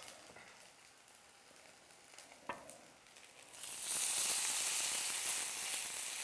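Shredded-potato pancake batter frying in hot oil in a skillet. A faint sizzle is broken by a single metal clink about two and a half seconds in. Just past the middle the sizzle jumps to a loud, steady hiss as a second spoonful of batter goes into the oil.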